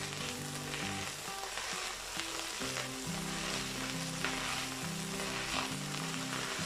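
Sour cabbage sizzling in oil in a pan, its cooking water boiled off so that it now fries, while a spoon stirs through it.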